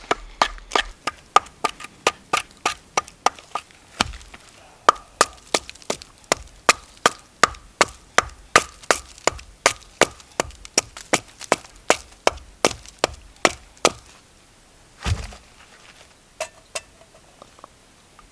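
A fast, even run of sharp strikes on wood, about three a second, each with a short ring. It stops near the end, followed by one heavier thump and a few light knocks.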